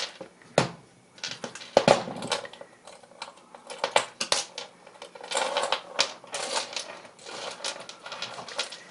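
Pliers, wire and metal jewelry pieces being handled on a worktable: irregular clicks, taps and clinks, some louder where the pliers work the wire or are set down.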